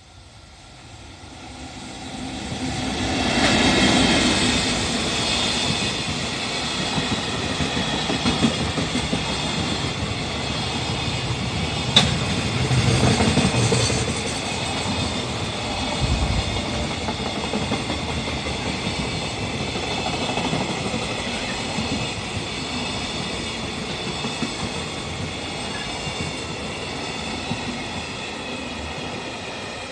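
Freight train hauled by an EF65 electric locomotive passing close by. The rumble rises sharply a few seconds in as the locomotive arrives, then the wagons roll past in a long, steady rumble and clickety-clack of wheels over rail joints, easing slightly near the end.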